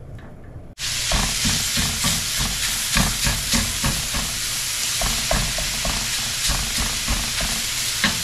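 Ground sausage sizzling in a hot skillet while a hamburger separator chops and scrapes it against the pan in quick repeated strokes. The sizzle starts abruptly about a second in, after a quieter moment.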